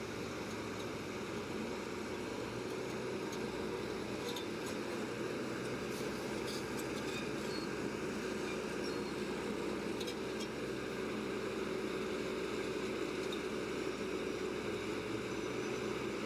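Heavy earthmoving machine's diesel engine running steadily, an even drone with a few faint clicks.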